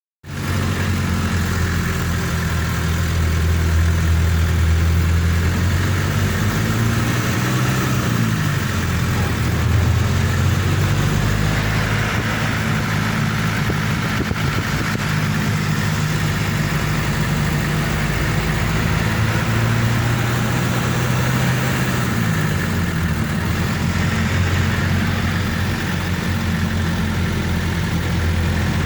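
Off-road vehicle's engine running steadily under way, its pitch stepping up around eight seconds in and shifting again around twenty-two seconds, over road and wind noise.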